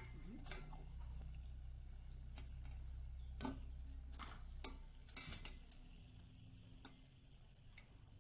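Metal tongs clicking and tapping against a stainless steel pot as fried doughnuts are lifted out of the oil: scattered light clicks, a few close together about five seconds in, over a low steady hum.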